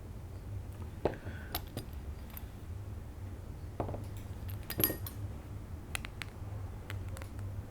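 Light clicks and clinks of small plastic and metal RC shock-absorber parts and tools being handled, a handful of separate taps with a few louder ones about a second in and around the middle, over a steady low hum.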